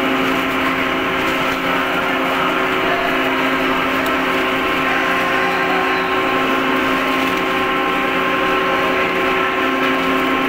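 Chicken-waste rendering plant machinery running steadily: a loud, constant mechanical hum with several steady tones over an even noise.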